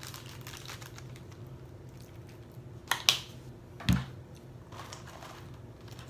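Food and containers handled on a table: light rustling, two sharp clicks about three seconds in, then a dull thump as something is set down, over a low steady hum.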